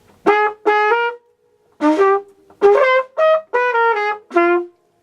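Flugelhorn playing a phrase of about eight short, separated notes that step up and down in pitch.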